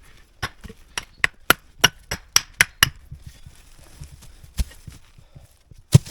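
A quick run of about nine sharp knocks, roughly three a second, then two single knocks, the last one the loudest.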